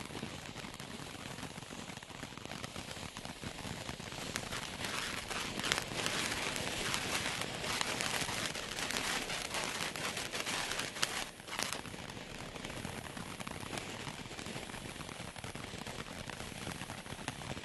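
Black Cat 1.21 Gigawatts firework crackling continuously, a dense rain of small pops and hiss. It swells about four seconds in and eases back after about twelve seconds.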